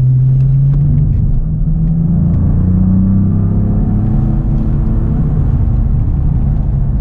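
Cadillac CT4-V Blackwing's twin-turbocharged 3.6-litre V6 pulling hard in third gear under full acceleration, its pitch rising through the first three seconds and then levelling off, heard from inside the cabin.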